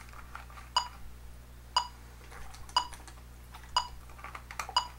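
Metronome clicking a steady beat, about one sharp click a second.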